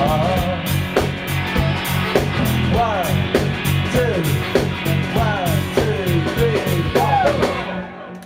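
Live rock band playing the song's final bars with drums, bass and electric guitar, a line of notes bending up and down over the beat, until the band stops abruptly near the end.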